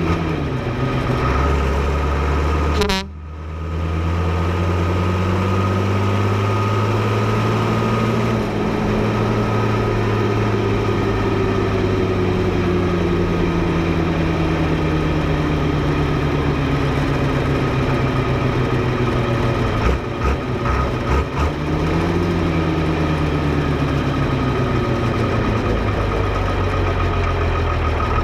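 Fiatagri 115/90 tractor's FIAT six-cylinder diesel running, its revs rising slowly, easing back down, then rising briefly again and settling, with a steady high whine on top. There is a sudden sharp break in the sound about three seconds in.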